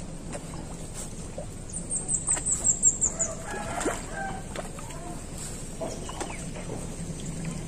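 Birds calling: a fast run of about ten sharp, high-pitched notes falling slightly in pitch, then a few lower clucking calls.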